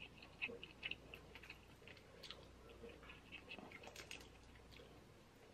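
Faint, scattered small clicks and crackles of crab shell and meat being picked apart by hand, otherwise near silence.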